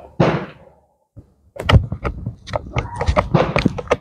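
Steyr M95 straight-pull rifle's bolt being worked by hand: a single knock just after the start, then from about a second and a half in a dense run of metallic clacks and rattles as the bolt is pulled back and run home.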